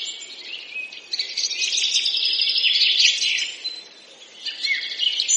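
Birds chirping: many short, high calls overlapping in a busy chorus, dropping away briefly about four seconds in, then picking up again.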